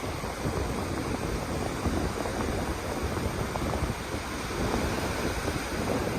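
Wind buffeting the microphone over a steady ocean rush, with no clear tones.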